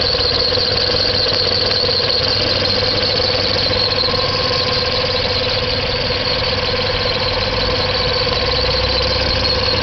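1997 Nissan VQ V6 engine running with a steady high squeal over it, the odd noise it has developed.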